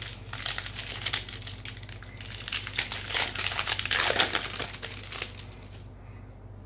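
Trading-card booster pack wrapper being opened and crumpled by hand, a dense crinkling and crackling that dies away about six seconds in.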